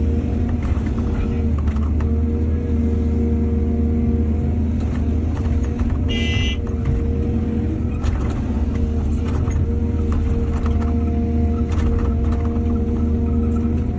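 Excavator's diesel engine running steadily under load, with scattered clanks and knocks. There is a brief high squeal about six seconds in.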